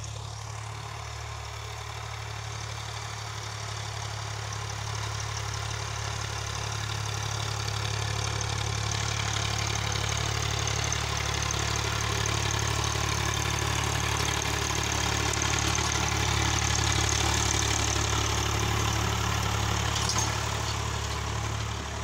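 Swaraj 855 tractor's three-cylinder diesel engine running steadily under load while pulling a disc harrow through tilled soil. It grows louder as the tractor approaches, then eases slightly near the end.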